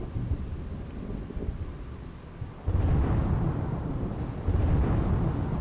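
Thunder rumbling over rain: a deep rumble that swells sharply about two and a half seconds in and again near the end.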